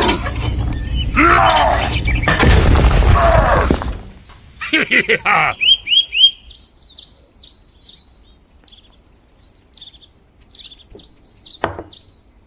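Small birds chirping: a long run of short, quick, high chirps from about five seconds in. Before that there is a loud low rumble with sliding, voice-like sounds, and there is one sharp click near the end.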